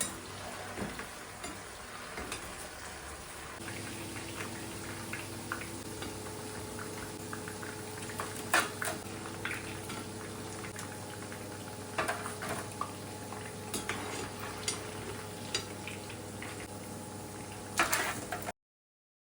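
Food cooking on the stove, bubbling and sizzling in a pot or pan, with a steady hum that comes in a few seconds in and scattered clinks of utensils and dishes. The sound cuts off abruptly just before the end.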